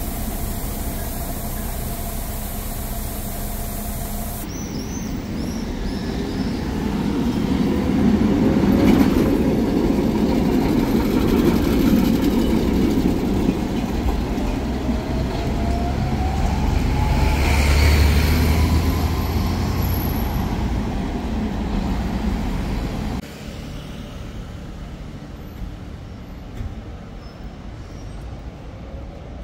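Electric tram running on street track: wheel-on-rail rumble with a motor whine that rises slowly in pitch as the tram accelerates. The sound changes abruptly twice, becoming louder a few seconds in and quieter about three quarters through.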